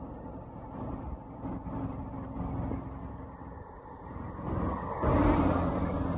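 Truck engine running with a steady low hum, growing louder about five seconds in.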